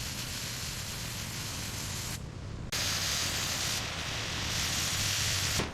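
High-pressure spray hissing steadily over a low machine hum, stopping briefly about two seconds in and then starting again.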